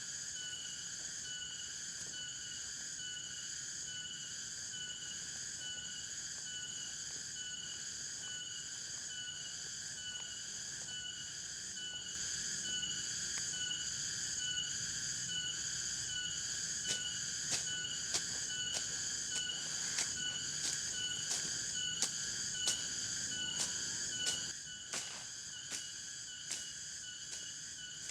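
Steady insect chorus in several high, pulsing tones. From about halfway in, scattered sharp clicks and small knocks sound over it, thinning out near the end.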